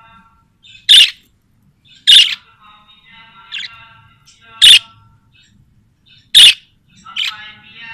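Budgerigars calling: five loud, sharp squawks spaced a second or more apart, with quieter warbling chatter between them.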